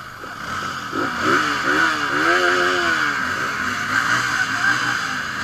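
Several motorcycle engines running together while riders rev them, with one rev rising and falling in pitch near the middle.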